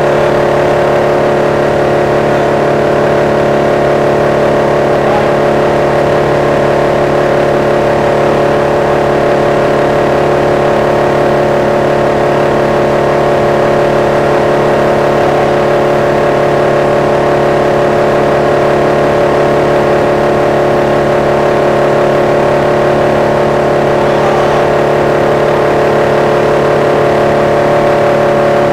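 Vermeer wood chipper's engine running steadily at constant speed, a loud unchanging drone with a steady hum of several tones.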